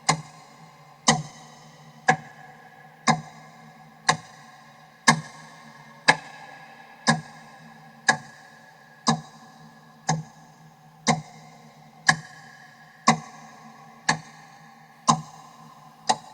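Clock ticking once a second, an evenly spaced series of sharp ticks, each with a short ringing tail.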